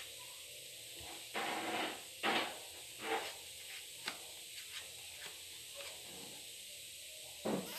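A knife scraping and cutting margarine out of its packet into a bowl: a few short scrapes with a light knock in between.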